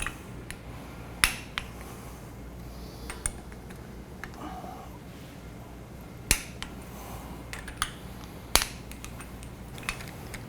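Sharp metallic clicks and clinks at irregular intervals from a torque wrench and socket on steel flange bolts. The bolts are being brought up in one-third torque increments.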